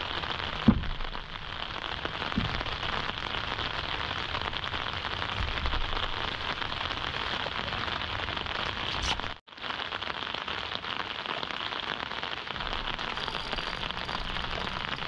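Steady rain falling, a dense even hiss. A single sharp knock sounds shortly after the start.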